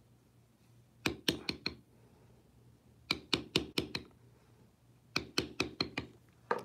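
Mallet tapping a small round beveler into leather: three quick runs of about five sharp strikes each, roughly two seconds apart, as the tool is walked along a tooled line.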